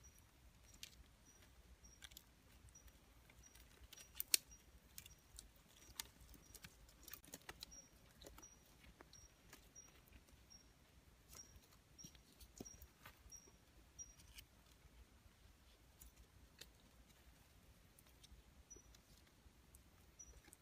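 Faint, sparse crackles and snaps from a small dry-twig campfire as sticks are laid on it, with one sharper snap about four seconds in. Behind it, a high short pip repeats about twice a second, stopping after about fourteen seconds and returning twice near the end.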